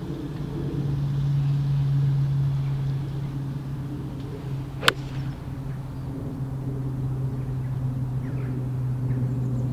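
A 6-iron striking a golf ball off the turf: one sharp click about five seconds in. Under it runs a steady low mechanical hum.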